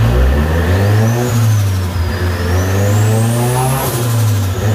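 Turbocharged Mitsubishi Lancer's 4G15 MIVEC four-cylinder, fitted with a 3-inch downpipe, accelerating hard through the gears. The revs climb, drop at an upshift about a second in, climb again and drop at a second shift near the end. A high whine rises and falls along with the revs.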